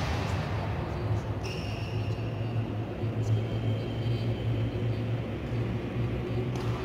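A steady low hum fills a large indoor sports hall, with a few faint racket strikes on a shuttlecock during a badminton rally.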